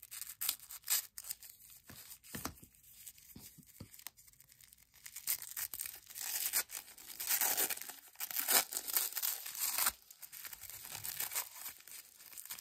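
Tissue paper being snipped with scissors and torn open, then crinkled as it is pulled off a small wrapped item. A string of sharp clicks and rips, thickest and loudest from about six to ten seconds in.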